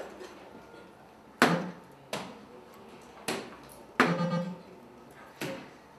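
Soft-tip darts striking an electronic dartboard, about five sharp hits a second or so apart, several followed by the machine's short electronic tones.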